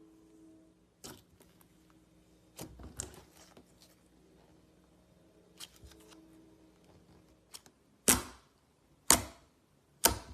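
Slime being handled by hand, giving a series of sharp clicking pops. They are scattered at first, then come as three loud pops about a second apart near the end.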